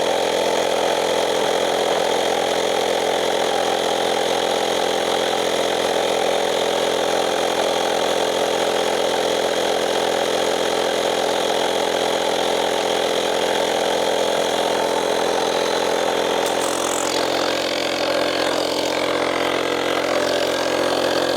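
Portable air compressor running steadily, inflating a freshly plugged tubeless tire.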